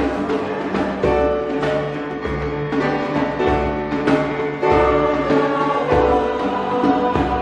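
Instrumental church music: sustained chords over a moving bass line.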